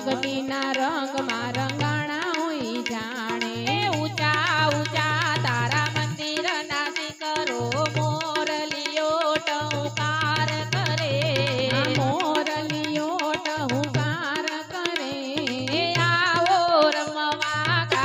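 Devotional kirtan music between verses: a wavering melody line over a tabla-like hand drum and rapid strikes of hand-held kartal clappers.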